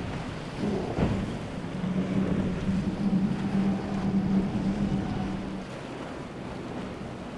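Powerboat running fast through choppy sea: a steady engine drone from about two seconds in until near six seconds, over wind on the microphone and rushing water, with a sharp thump about a second in.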